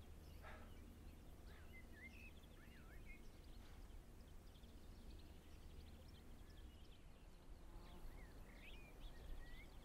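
Faint outdoor ambience: birds chirping in two short spells, about a second and a half in and again near the end, over a low steady hum.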